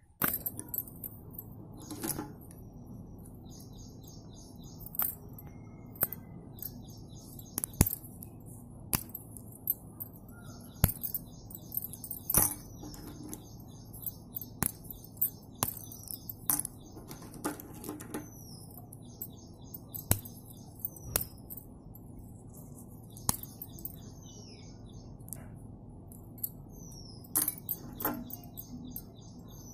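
Slate pencils being snapped into short pieces and dropped into a glass bowl: sharp irregular clicks and clinks, some louder, over a steady low hum. Birds chirp repeatedly in the background.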